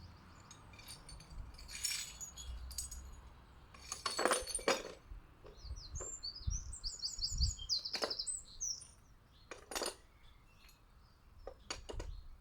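Garden birds at a feeder: sharp clinks and taps on the glass jar of bird peanut butter, several close together about four seconds in and more scattered through. A small bird sings a fast run of repeated high notes in the middle.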